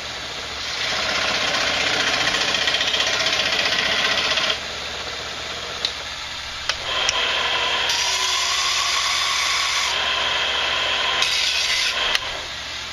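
Power saw cutting the end off a Native American flute to shorten it and bring its pitch up toward A. It runs in two spells: the first stops about four and a half seconds in, and the second starts about two seconds later and stops near the end.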